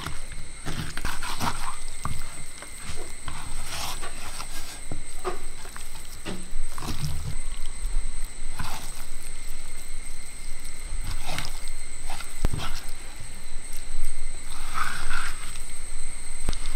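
Hands squeezing and kneading raw chicken pieces in a wet spice marinade in a clay bowl: irregular wet squelching and slapping, with occasional knocks of meat against the bowl.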